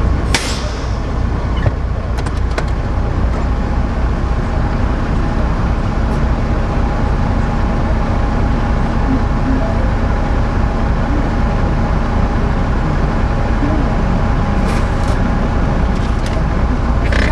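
Semi truck's diesel engine running steadily, heard from inside the cab. A sharp click just after the start and a few more clicks near the end.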